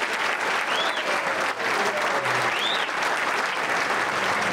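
Audience applauding. Two short high whistles rise and fall above it, about one and three seconds in.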